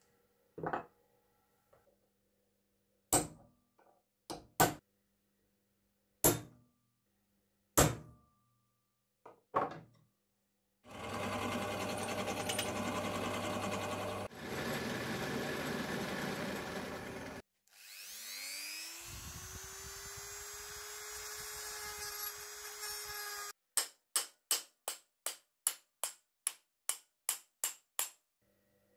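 A few sharp knocks, then a drill press boring into a wooden tool handle for about six seconds, and a motor spinning up to a steady whine. Near the end come about ten hammer blows, roughly two a second, on a steel rod set in the wooden handle.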